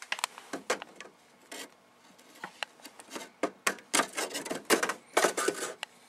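Irregular clicks, knocks and scrapes of hands handling a memory riser card and sliding it into a 2008 Mac Pro's memory bay, busiest about four to five and a half seconds in.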